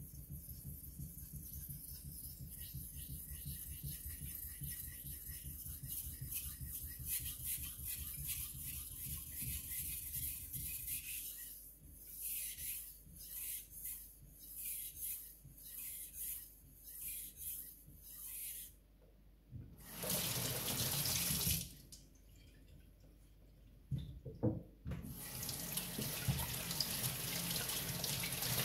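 Takamura Chromax knife blade stroked back and forth on a wet Suehiro Cerax #1000 water stone, first in quick continuous strokes, then in slower separate strokes about one a second. Then tap water runs: a short gush, a pause with a few knocks, and a steady flow near the end as the stone is rinsed.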